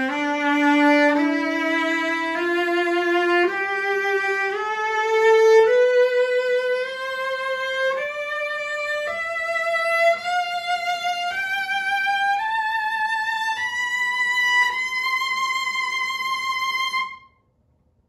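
A 7/8-size Jan Szlachtowski cello (Stradivari model, 2013) bowed in a slow ascending scale of about two octaves, one note roughly every second, climbing into the high register. The top note is held with vibrato and stops about a second before the end.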